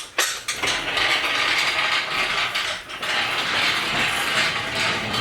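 A wheeled piece of shop equipment being rolled across the floor: a continuous metallic rattle and clatter from its casters and load, with a brief let-up about three seconds in.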